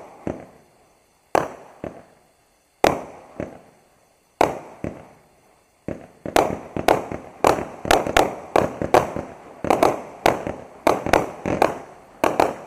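A 25-shot, 200-gram consumer firework cake (Raccoon Fireworks 25S Colorful Skies) firing. At first it gives single sharp reports about every second and a half; from about six seconds in, a faster run follows at two or three shots a second, each report trailing off in echo.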